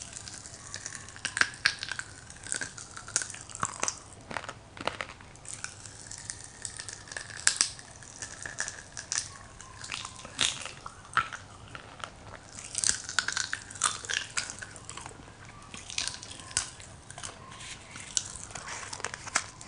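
Crack-Ups popping candy crackling in the mouth as it dissolves: many sharp little pops at an irregular rate. The pops come from pressurised carbon dioxide bubbles bursting as the candy melts.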